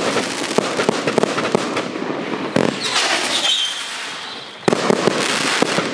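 Consumer 500-gram, 42-shot firework cake firing. Dense crackling pops, then a sudden loud shot about two and a half seconds in with a short whistle from its whistling tail. A fresh burst of crackling follows just before the end.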